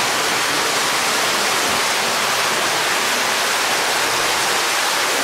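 Water rushing and falling inside a limestone cave: a steady, loud wash of noise that holds level.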